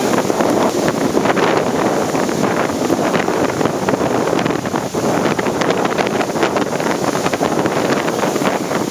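Strong wind buffeting the microphone in loud gusts, over the wash of surf breaking onto the sand.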